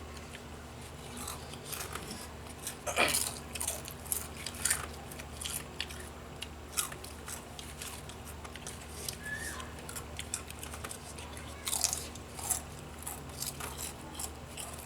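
Crunchy corn snacks being bitten and chewed: irregular crisp crunches, loudest about three seconds in and again around twelve seconds in, over a faint steady hum.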